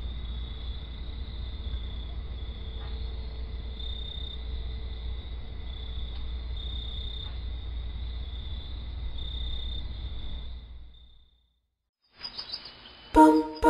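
Night ambience of insects, crickets or similar, trilling in a steady high, wavering chorus over a low steady hum, fading out about eleven seconds in. Music starts loudly just before the end.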